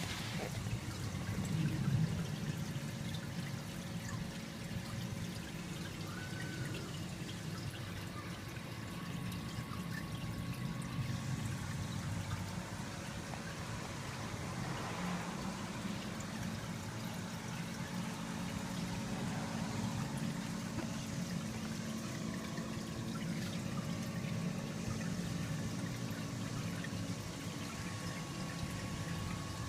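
Water running steadily, with a faint steady hum beneath it.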